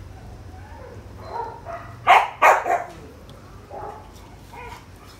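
A dog barks twice in quick succession about two seconds in, loud and sharp, with softer short whines or yips before and after.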